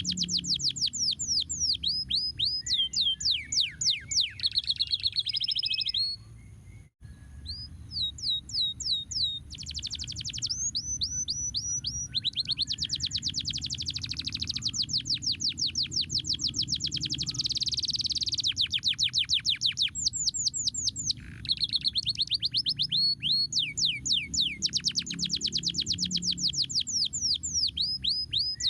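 Domestic canary singing: fast rolling trills of repeated sweeping notes, switching from one phrase to the next every few seconds. The song breaks off briefly about six to seven seconds in.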